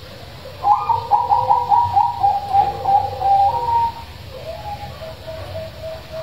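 Zebra dove (perkutut) singing: a loud, rapid staccato trill of coos that starts about a second in, lasts about three seconds and drops slightly in pitch. Softer, lower coos follow in an even rhythm.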